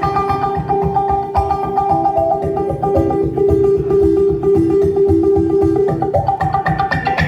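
Clawhammer banjo playing an instrumental passage, repeated notes over a steady beat.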